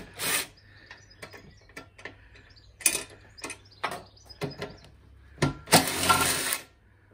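Makita 18V cordless impact driver hammering in several short bursts as it undoes seat-base bolts, the longest burst, just under a second, about six seconds in. Light clicks and clinks of the bolts and tool handling come between the bursts.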